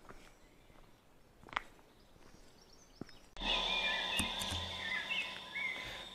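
Faint outdoor quiet with one soft click. About three and a half seconds in, it cuts to a spirit box app's electronic noise playing through a portable speaker: a steady high whine and a low hum, with warbling chirps over them.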